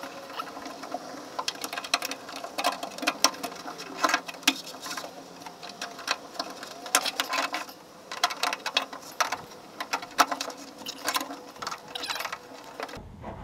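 Hand ratchet wrench clicking in quick, uneven runs while loosening the bolts on the fuel filler pipe brackets.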